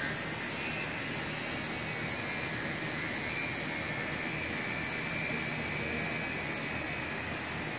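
Corded electric horse clippers running steadily as they clip a young horse's coat, over a steady rushing noise.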